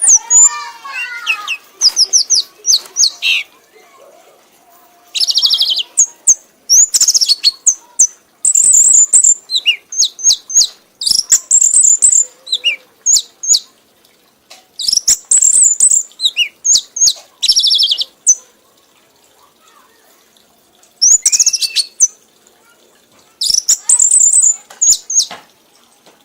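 A red 'kanis' songbird singing in rapid phrases of high chirps and trills, with short pauses between the phrases.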